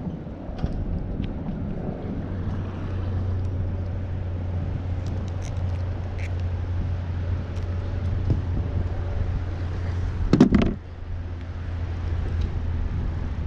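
Boat motor running with a steady low hum. A single loud knock comes about ten and a half seconds in.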